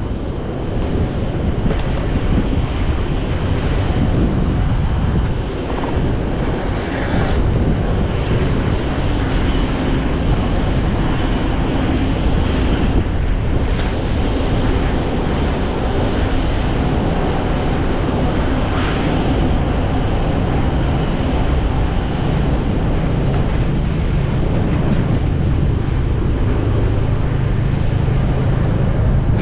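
Wind rushing over an action camera's microphone while riding a fixed-gear bike, a steady low rush mixed with passing traffic.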